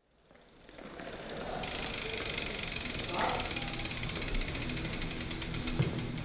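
Bicycle freewheel hub ticking as the rear wheel spins freely: a fast, even run of pawl clicks that fades in and slows slightly near the end.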